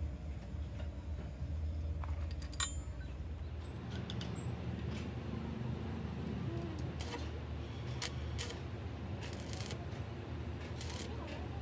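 Metal tools and parts clinking and scraping in short bursts, over a steady low hum.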